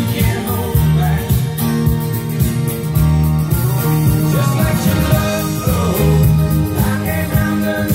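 Recorded music with guitar, played loud through hi-fi loudspeakers driven by a Phase Linear 400 solid-state power amplifier.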